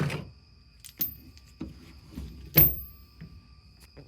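Deep-well 3/8-inch-drive impact sockets sliding out of their plastic organizer rail and knocking together, five separate knocks with the loudest about two and a half seconds in.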